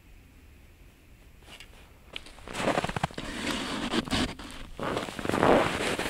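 Close, irregular rustling and crunching of winter clothing and frozen snow as the angler moves about and handles his gear, with many small clicks. It starts about two and a half seconds in, after a quiet start.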